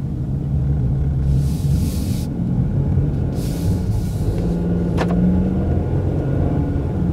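Car driving on a snowy road, heard inside the cabin: a steady low rumble of engine and tyres, with two brief swishing noises and a sharp click about five seconds in.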